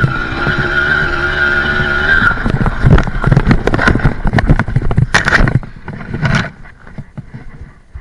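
Balkan 50's 50 cc two-stroke engine running and cutting out about two seconds in as the bike crashes. It is followed by a scramble of thuds, scrapes and rustling as bike and rider tumble through dry grass and brush.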